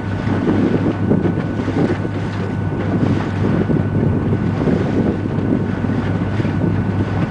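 Boat engine running with a steady low hum, under wind gusting on the microphone.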